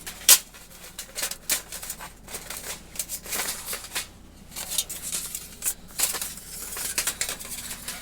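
Thin titanium fire-pit plates clinking and scraping against each other in irregular sharp metallic ticks as they are handled and slotted together.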